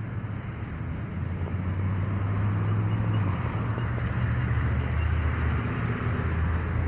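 Road traffic on a busy street, a steady rumble of passing vehicles that grows louder in the first couple of seconds.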